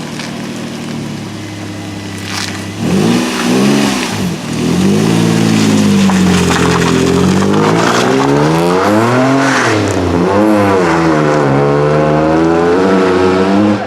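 Nissan Maxima V6 exhaust through a Megan Racing cat-back: idling steadily, then revved in a few quick blips, then revved up and down more slowly. It cuts off abruptly at the end.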